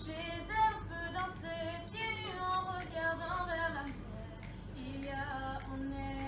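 Young school choir of mostly girls singing a melody, with a violin accompanying; from about five seconds in a long low note is held under the voices.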